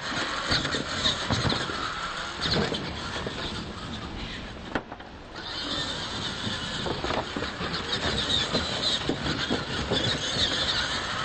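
RC monster trucks racing on dirt: electric motors and gearboxes whining, the pitch wavering up and down with the throttle, over the rush of tyres on the dirt, with a few sharp knocks along the way.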